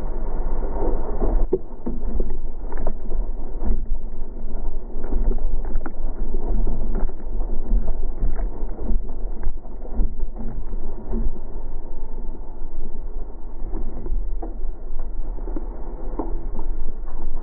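A wooden log fitted as a car wheel rolling on asphalt: a continuous muffled rumble with irregular knocks and thumps as the uneven log turns, along with the car's running drivetrain.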